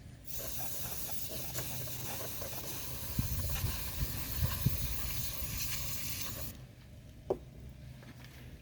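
Can of compressed-air electronics duster spraying: one long hiss of about six seconds that cuts off sharply, with a few dull knocks in the middle.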